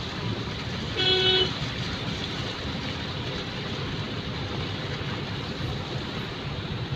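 A vehicle horn gives one short beep about a second in, over a steady background of outdoor street noise.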